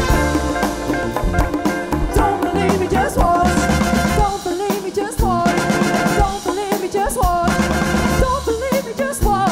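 A live band playing, with drum kit and congas keeping a busy beat under horns and a wavering lead melody.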